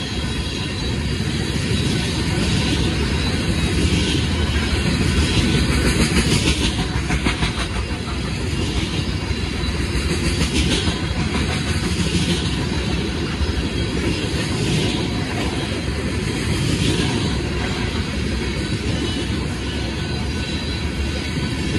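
Loaded gondola cars of a freight rock train rolling past: a steady rumble of steel wheels on rail, with a louder clack of passing wheel sets every couple of seconds.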